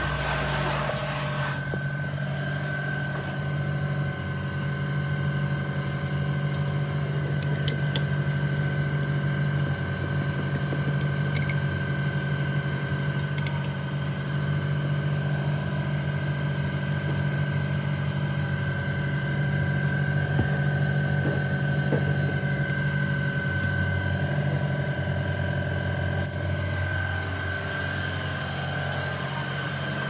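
A machine running steadily: a low, engine-like hum with a constant high whine above it. A brief hiss opens the first second or so.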